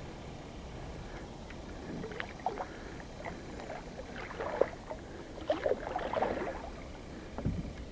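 Kayak paddle strokes in slow creek water: splashes and drips with small sharp clicks, starting about two seconds in and busiest past the middle.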